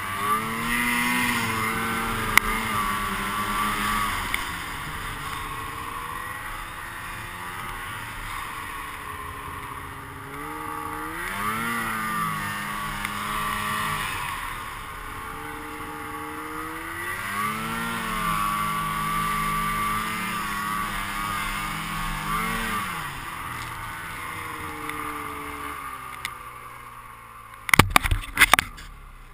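Snowmobile engine revving up and holding speed, then easing off, three times: about a second in, about 11 seconds in and about 17 seconds in. Near the end a quick cluster of sharp knocks.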